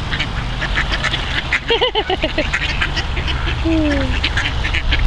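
Ducks quacking repeatedly in short calls, over a steady rumble of wind on the microphone.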